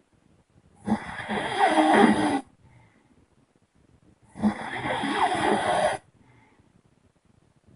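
A person snoring: two long snores of about a second and a half each, a few seconds apart.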